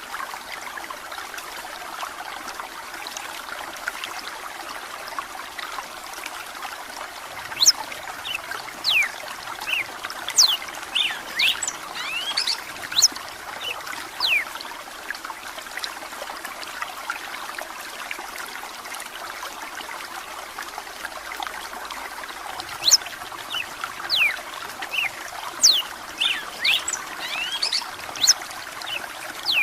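A red-cowled cardinal (galo de campina) sings in bouts of quick, sharp whistled notes, first from about 7 s to 15 s in and again from about 23 s on. Under the song is the steady trickle of running water.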